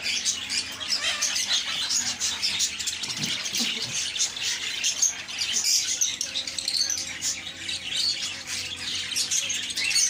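A crowded aviary of small cage birds, yellow parakeets among them, chirping and squawking: many short, high calls overlapping without a break.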